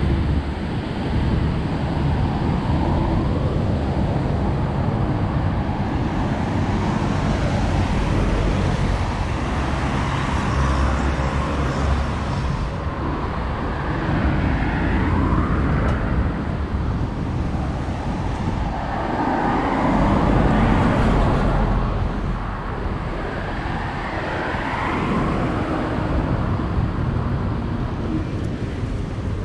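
Road traffic on a multi-lane avenue: cars and vans passing one after another, each swelling and fading over a steady low rumble, the loudest pass-by about two-thirds of the way through.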